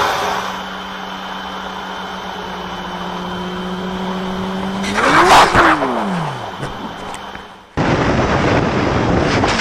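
Motorcycle engine running at a steady pitch, then about five seconds in a loud rush of noise as the engine pitch slides both up and down, fading away. Near the end, an abrupt switch to loud wind and engine noise of another ride.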